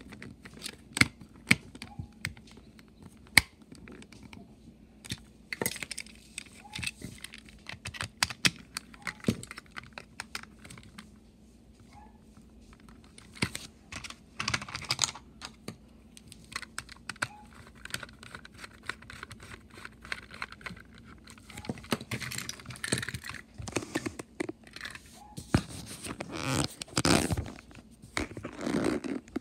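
Irregular small clicks, taps and rattles of plastic toy-train parts and a screwdriver being handled: screws turned out of a Tomy engine's plastic chassis, the tool set down, and the body and parts moved and fitted together on a table. The clicks come thicker in the second half.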